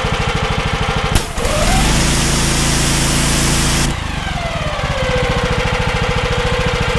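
Briggs & Stratton engine-driven pressure washer idling. About a second in there is a sharp click and the high-pressure jet starts to hiss, and the auto throttle revs the engine up. Just before four seconds in the spray cuts off abruptly and the engine winds back down to a steady idle, the auto throttle dropping it back when the trigger is released.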